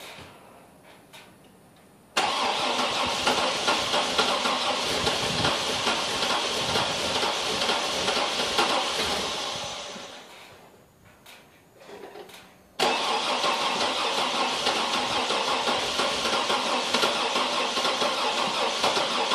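Chevrolet Trailblazer V8 being cranked from cold for a hard start: the engine turns over suddenly about two seconds in and dies away after about seven seconds, then a second attempt starts abruptly near the end. The engine struggles to run, which the owner puts down to dead cylinders.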